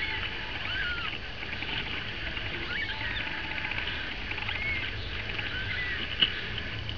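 Newborn kittens mewing: several short, high cries that rise and fall, spaced a second or two apart over a steady low hum, with a small click near the end.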